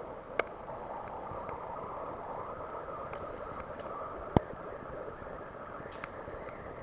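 Steady aquarium water hiss with scattered sharp clicks: a loud one near the start, the loudest about four seconds in, and a few faint ticks between. The title presents these as a male red-back angelfish calling its fry.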